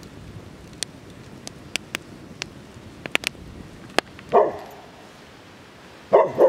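Dog barking in alarm: one bark about four seconds in and two quick barks near the end, upset at something in the forest that the owner wonders may be a bear scenting the camp. Before the barks, a scattering of sharp clicks.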